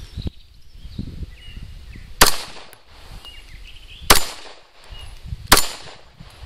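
Three pistol shots from a Glock, each a sharp crack with a short echoing tail; the first about two seconds in, the next two spaced about two seconds and a second and a half apart.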